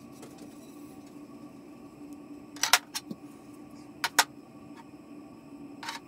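Camera handling noise: a few sharp clicks and taps, coming in close pairs, over a steady low hum.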